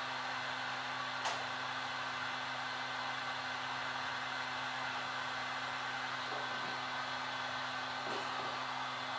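Heat gun blowing steadily, warming the phone's glass to soften the screen adhesive. A single sharp click about a second in.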